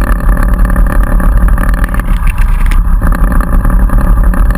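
Snowmobile engine idling steadily, heard from a camera mounted on the sled, with an even, unchanging note.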